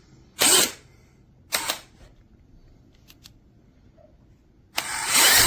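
DeWalt 20V MAX XR cordless hammer drill run with short trigger pulls: two brief spin-ups in the first two seconds, then a longer run that starts near the end.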